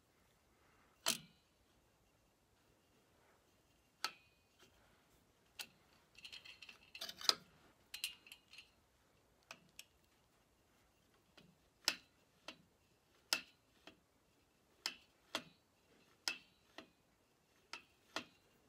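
Scattered sharp clicks and light metallic clinks of small parts and a hand tool being handled on a tractor hydraulic lift cover, with a brief jingling rattle of small metal parts about six to eight seconds in.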